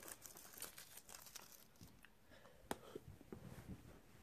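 Foil wrapper of a small chocolate crinkling and tearing faintly as it is unwrapped, with scattered small clicks and one sharper click.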